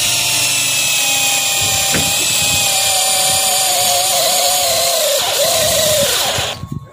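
21-volt cordless drill driving a self-drilling screw into a steel flat bar: a steady high motor whine that wavers and drops in pitch in the last couple of seconds as the screw bites and tightens, then stops suddenly near the end.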